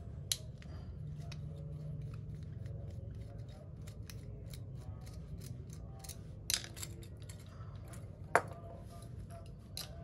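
Small screwdriver clicking and scraping against the brass pilot jet and body of a Yamaha 125ZR carburetor as the jet is unscrewed. Light metal ticks are scattered throughout, with a few sharper clicks a moment in, at about six and a half seconds and at about eight and a half seconds, over a steady low hum.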